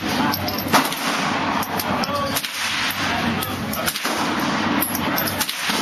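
Gunshots at a shooting range: several sharp cracks, the loudest about three-quarters of a second in, over a steady bed of range noise.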